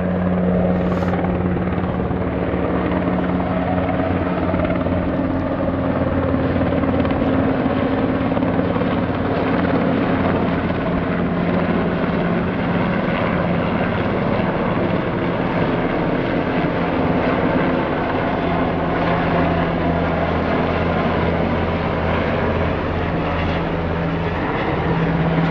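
Helicopter flying low overhead, about 150 to 200 feet up: loud, steady rotor and engine noise.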